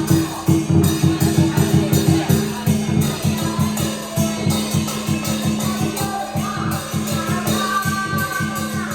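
Music with dense, fast percussion strokes over a steady low drone; a melody line comes in during the second half.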